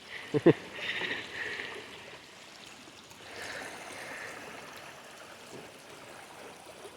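Rain-swollen stream running, a steady rush of water.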